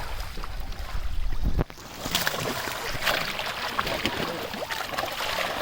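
Wind buffeting the microphone for about a second and a half, cutting off suddenly. After that, irregular splashing and sloshing of pond water as people wade and work the fishing traps.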